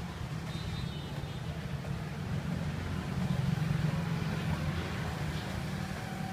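Steady low mechanical rumble, with no distinct knocks or chops standing out.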